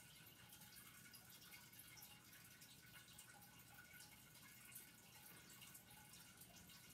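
Near silence: faint room tone with a light hiss and a few tiny scattered ticks.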